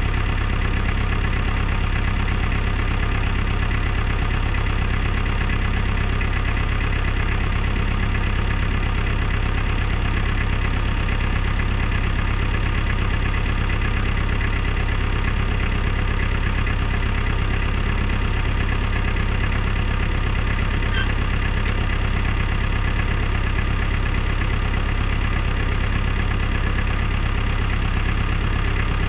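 A heavy machine's engine idling steadily, with a strong low rumble.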